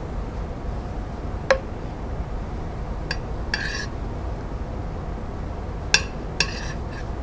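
A metal spoon clinking and scraping against a pot and a plate as cream sauce is spooned out: a handful of sharp clinks, the loudest about a second and a half in and near six seconds, some followed by a short scrape, over a low steady hum.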